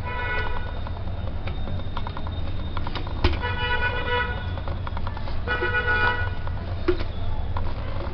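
A vehicle horn honks three times, each blast steady in pitch and about a second long, with a couple of sharp knocks of a plastic bottle being handled in between.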